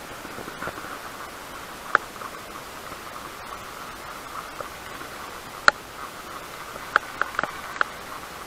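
Sharp clicks of the hook and swivel being handled against a Cuban yo-yo hand reel: one about two seconds in, another near six seconds, and a quick run of four near the end. Steady wind hiss underneath.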